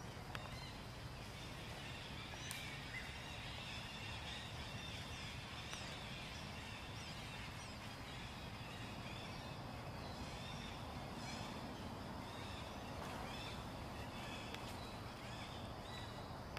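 Outdoor forest ambience: a steady low background noise with a thin, steady high drone like insects, overlaid by many short chirping animal calls that come and go in clusters.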